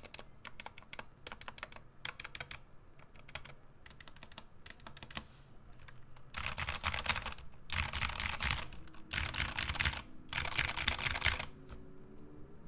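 Typing on a Redragon K617 Fizz mechanical keyboard with stock linear Redragon Red switches, stock keycaps and stabilizers: scattered single keystrokes at first, then about halfway through, four fast runs of rapid keystrokes, each about a second long and louder.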